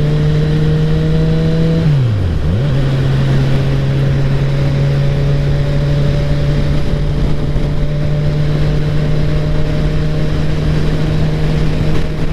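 Motorcycle engine running under way at a steady, slowly climbing pitch, with wind rushing past. About two seconds in, the engine note dips sharply and comes straight back up.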